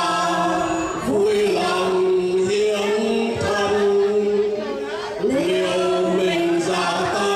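A mixed group of men and women singing a Vietnamese soldiers' song together into microphones, in long held notes that change pitch twice.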